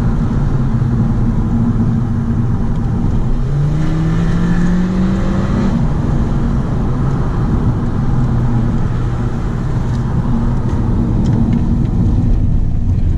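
Audi A3 1.4 TFSI's turbocharged four-cylinder petrol engine heard from inside the cabin while driving, over steady tyre and road noise. A few seconds in, the revs climb for about two seconds, then drop back to a steady pull.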